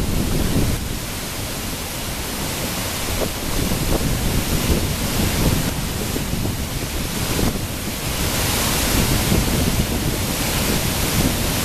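Henrhyd Falls, the highest waterfall in South Wales, pouring down in a steady, loud rush of water, with wind buffeting the microphone in uneven gusts underneath.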